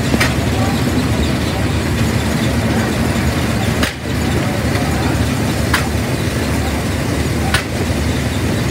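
Threshing machinery running steadily with a dense, even rumble, with a few sharp clicks.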